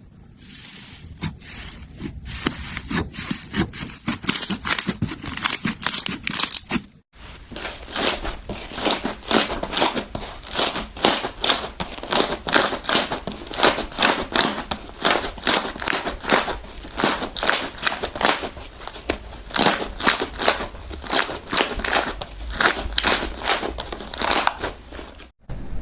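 Slime being squeezed and poked by hand, giving a rapid run of crackles and pops, with a brief break about seven seconds in.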